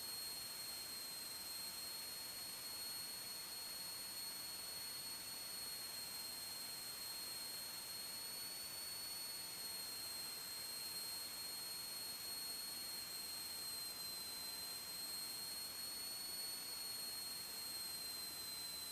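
Faint, steady high-pitched electronic whine made of several thin tones that waver slightly, over a low hiss. It is noise in the audio recording chain; no engine or cockpit sound comes through.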